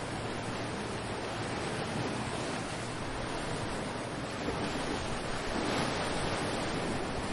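Ocean waves washing ashore, a steady rush of surf that swells a little past the middle, with some wind on the microphone.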